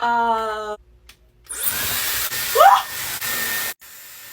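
Dyson hair dryer switched on and blowing: a loud, even rushing of air lasting about two seconds, with a brief rising squeal at its loudest point. A short held tone comes just before it, and after the airflow stops a quieter hiss carries on.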